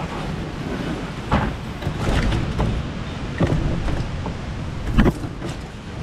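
Steady rumble of a high-water river rushing just above a waterfall, with four sharp knocks spread through it, the loudest about five seconds in.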